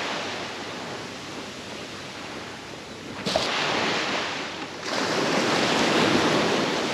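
Surf washing onto a beach: a steady rush of breaking waves that eases off, then swells again with a wave about halfway through and a bigger one about two-thirds of the way in.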